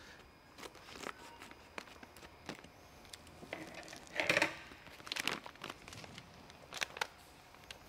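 Foil packet being cut open and handled, crinkling and rustling in irregular bursts, loudest about four seconds in.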